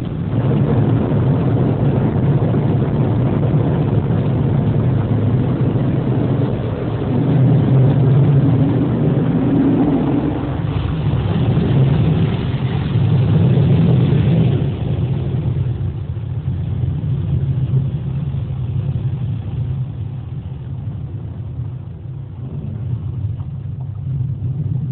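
Automatic car wash machinery running: a steady low motor hum under a rushing noise, which swells for a few seconds around the middle and then eases.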